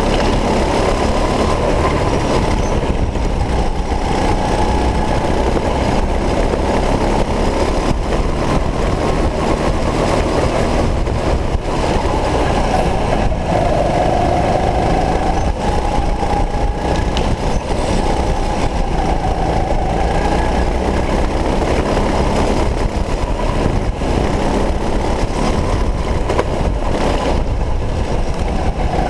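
Go-kart running at racing speed around an indoor track, heard from a camera mounted on the kart: a loud, steady rumble of motor and rushing noise, with a faint whine that rises and falls as the kart speeds up and slows through the corners.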